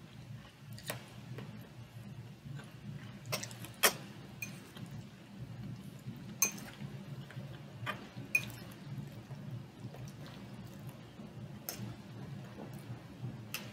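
A metal fork clinking against a bowl as pasta salad is scooped up: about nine sharp, separate clinks, the loudest about four seconds in, over a faint low hum.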